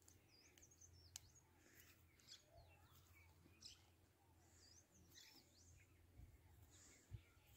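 Near silence, with faint, scattered high bird chirps and a few soft clicks.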